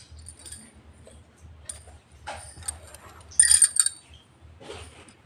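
A stone- and bead-embellished blouse being handled: a few short bursts of fabric rustling with light clinks of the stones, the loudest about three and a half seconds in.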